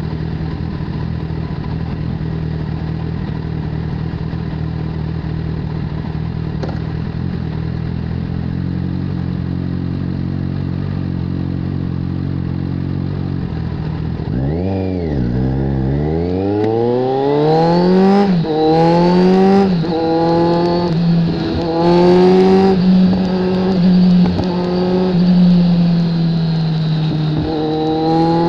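2015 Kawasaki Z1000's inline-four engine, through an SC-Project aftermarket exhaust, idling steadily at a standstill. About halfway through it pulls away, the engine note rising and then dropping back with each of several quick upshifts as the bike accelerates.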